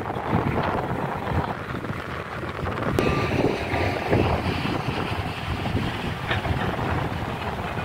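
Wind buffeting the microphone: a gusty, rumbling rush with no speech. There is a single sharp click about three seconds in.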